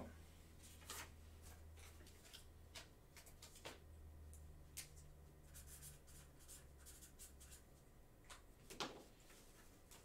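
Faint handling of trading cards and packs on a table: scattered small taps, clicks and rustles over a low steady hum.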